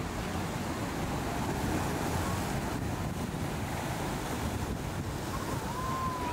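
Wind buffeting the microphone over the wash of waves and surf, with the rush of a power catamaran's hull and wake through choppy inlet water. A faint high whistle glides in near the end.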